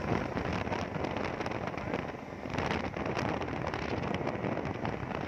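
Speedboat running at speed on a river: a steady rush of motor, water spray against the hull and wind on the microphone, with brief slaps as the hull meets the water.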